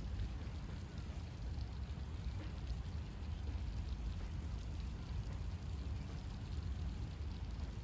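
Steady rain falling: an even hiss with scattered drop ticks over a constant low rumble.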